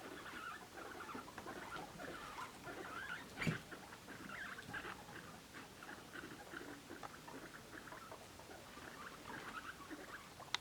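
Guinea pigs making a steady run of short, quick little sounds, with one sharp click about three and a half seconds in.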